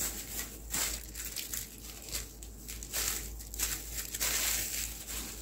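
Thin clear plastic bag crinkling in repeated bursts as hands work it open to get at a charging cable, busiest near the end.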